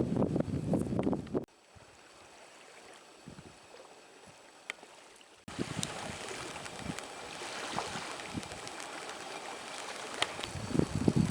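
Lakeshore outdoor ambience of wind and lapping water, in three abruptly cut segments: a loud rumbling stretch that cuts off after about a second and a half, a quiet hiss, then a steadier hiss with scattered light clicks from about five seconds in.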